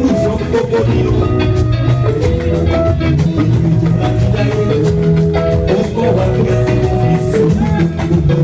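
Upbeat instrumental music with steady drums, bass and percussion and bright melodic notes, without singing.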